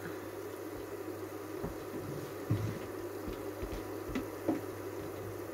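Sesame-coated buchi (glutinous rice balls) deep-frying in hot oil: a steady sizzle with a few sharp pops.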